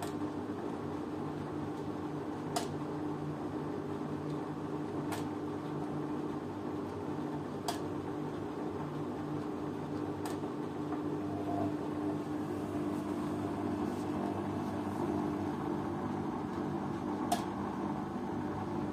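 Beko WMN 6510 N front-loading washing machine running a 90 °C cotton programme: a steady mechanical hum with a sharp click every two to three seconds.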